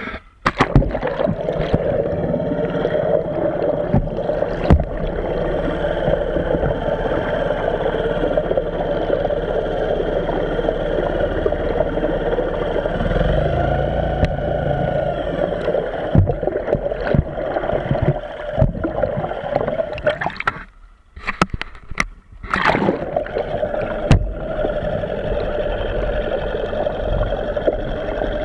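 Small 5 hp outboard motor running steadily, heard underwater, its propeller turning inside a ducted shroud and churning the water. A steady mid-pitched hum with water gurgle, which drops out briefly about three-quarters of the way through.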